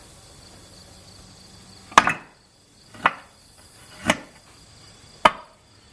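Four sharp knocks about a second apart, from the block of ice being handled at a vintage hand-cranked shaved ice machine.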